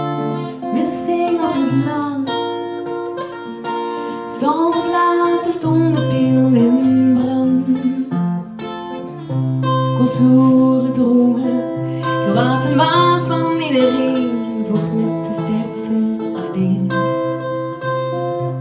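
A woman singing to an acoustic guitar accompaniment. The guitar holds steady chords between her sung phrases.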